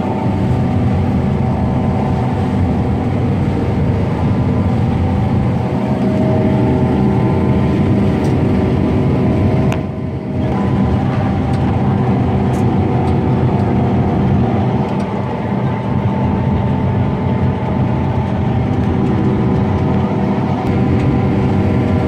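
Combine harvester running while it cuts soybeans, heard from inside the cab: a steady machine drone with a layer of constant hums, dipping briefly about ten seconds in.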